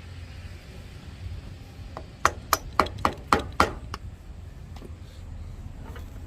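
Hammer striking in a quick run of about six sharp taps, roughly four a second, about halfway through, over a steady low hum.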